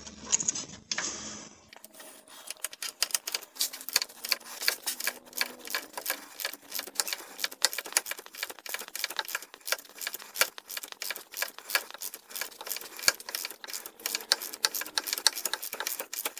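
Stanley extendable ratchet clicking rapidly as a bolt is backed out, a fast, steady run of clicks that starts about two seconds in.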